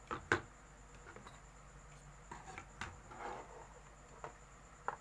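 Scattered light clicks and taps, with a short scrape near the middle, from handling a motherboard and small parts on a workbench.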